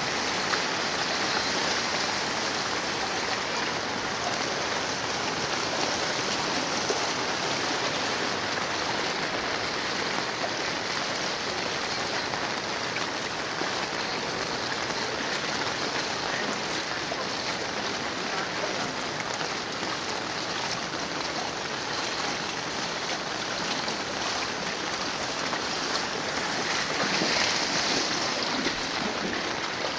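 Steady rushing hiss of water: rain and floodwater running over a flooded road, with a slight swell near the end.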